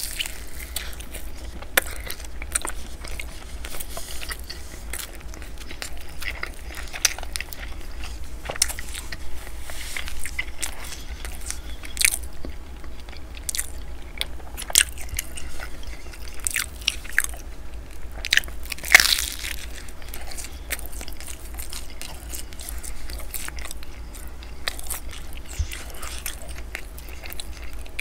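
Close-miked biting and chewing of cheesy bread, with sharp crisp crunches scattered throughout and a louder cluster of crunches about two-thirds of the way in.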